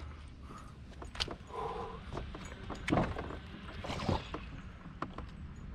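A few sharp knocks and clicks on a fishing boat over a low steady background, with a brief pitched sound about one and a half seconds in.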